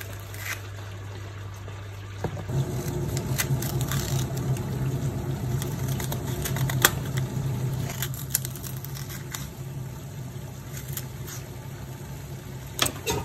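A small knife cutting and snapping the ends off fresh bean pods and stripping their strings, giving short, crisp clicks and snaps at irregular intervals. A steady low hum runs underneath and grows louder about two seconds in.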